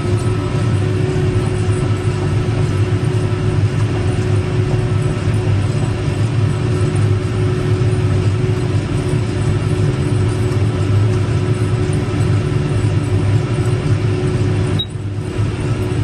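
John Deere tractor heard from inside its cab, its engine running steadily under load while pulling a baler through straw, a constant low drone with a steady hum over it.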